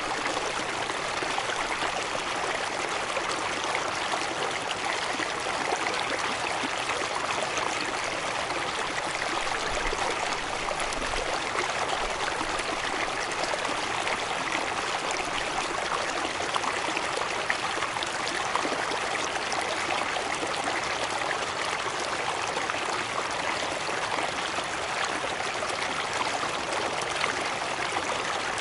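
A waterfall's water cascading over rocks: a steady, even rush with no breaks or changes.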